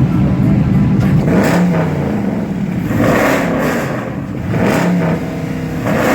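Car engine with a loud exhaust revving in repeated surges, about three of them, over a steady low rumble.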